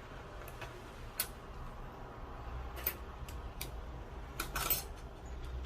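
Light metallic clicks and ticks, scattered over several seconds with a small cluster about four to five seconds in: the thin metal levers of an opened mortice sashlock being lifted out one by one and set down.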